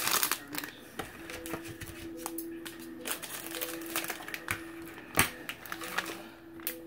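A plastic packet of grated Parmesan being handled and snipped open with scissors: scattered small clicks and ticks of plastic and blades, with one sharper click about five seconds in.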